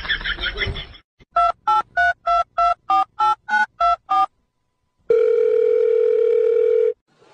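Electronic beeps: about ten short beeps, roughly three a second, stepping among a few pitches like a keypad tune, then after a short pause one steady tone held for about two seconds, like a telephone dial tone.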